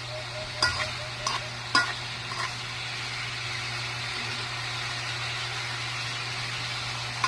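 Food frying in a pan: a steady sizzle, with a few sharp knocks of a utensil stirring against the pan in the first couple of seconds and once more at the end.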